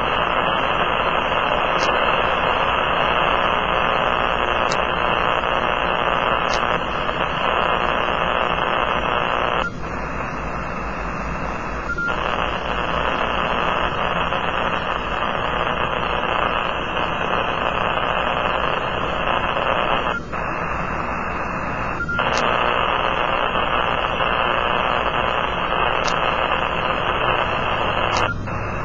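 Kenwood TS-480 transceiver receiving in AM, its speaker giving a steady hiss of static: powerline noise interference on the HF bands. The hiss dips and thins for a couple of seconds three times, about 10 and 20 seconds in and near the end, with a few faint clicks.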